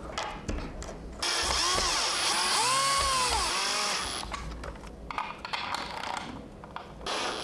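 Cordless electric screwdriver driving a screw to fasten a 3D-printed bearing support, its motor whine rising and falling in pitch several times over about three seconds from about a second in. Quieter handling sounds follow.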